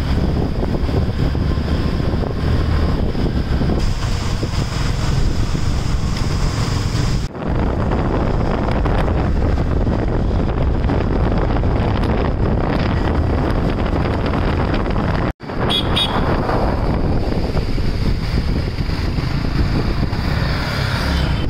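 Wind buffeting the microphone on a moving motorbike, mixed with engine and road noise, as a steady loud rumble. It drops out for an instant twice, and a short high-pitched toot sounds about two-thirds of the way through.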